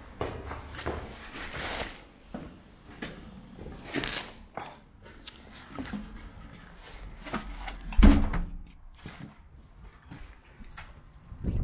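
Footsteps and scuffing on a stairway and a debris-strewn floor, with scattered knocks and one loud thump about eight seconds in.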